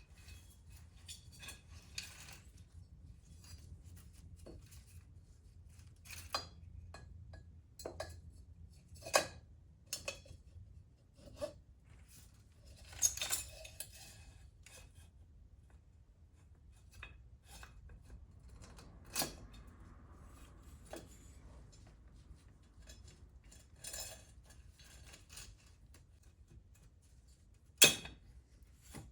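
Scattered metallic clinks and taps of hand tools and engine parts being handled during assembly, at irregular intervals, with a short scrape around the middle and the sharpest clink near the end.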